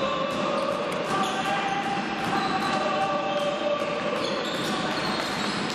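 Indoor hockey being played in an echoing sports hall: sticks clicking against the ball and on the wooden floor, with shoes squeaking as players move.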